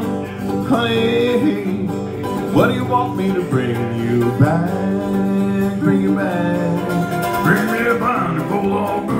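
Live bluegrass music: mandolin and acoustic guitar picking and strumming, with a man's voice singing over them.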